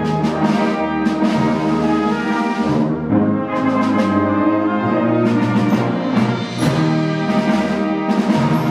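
Concert wind band playing: brass and woodwinds hold full, changing chords, with repeated percussion strokes.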